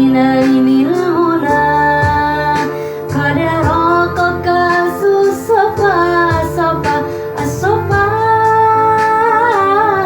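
Sung devotional song in praise of the Prophet Muhammad (sholawat), with a woman's voice carrying a melody of long held, wavering notes over instrumental accompaniment.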